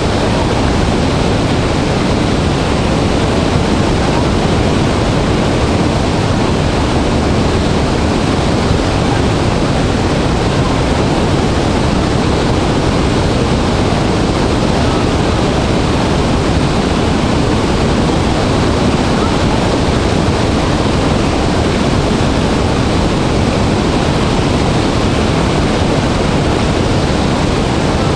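Large waterfall in heavy flow: a loud, steady rush of falling water with a deep rumble.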